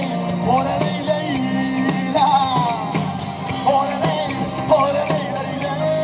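Live Latin band playing through a PA: congas, guitar and bass guitar, with a melody line weaving over a steady bass.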